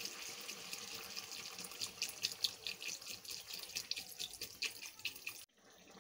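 Water poured from a bottle into a hot steel wok of spiced potato and ridge gourd curry, a steady splashing hiss with crackling pops as it hits the hot pan; the sound cuts off suddenly near the end.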